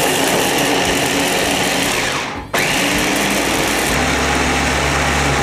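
Mitochiba CH-50 electric food chopper's motor running, its double blades whirling through shallots, garlic, candlenuts and peppercorns with a little water and grinding them into spice paste. The motor stops briefly about two and a half seconds in, then starts again and runs on.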